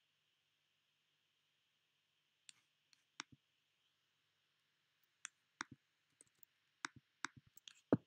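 Irregular clicking of a computer mouse, starting about two and a half seconds in: more than a dozen sharp clicks, several in quick pairs, the last one the loudest.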